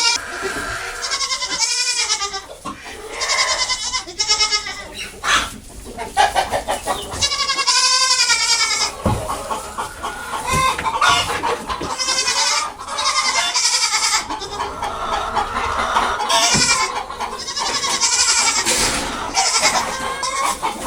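Goats bleating over and over, with chickens clucking among them.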